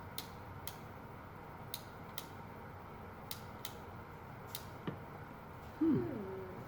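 Faint, irregular small clicks, about eight in five seconds, from handling the Teddy Ruxpin's cassette mechanism and contacts during repair. Near the end comes a short voiced sound from a person, gliding in pitch.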